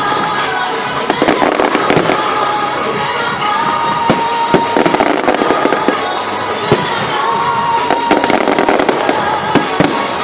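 Fireworks display: frequent sharp bangs and crackles going off throughout, over music with long held notes.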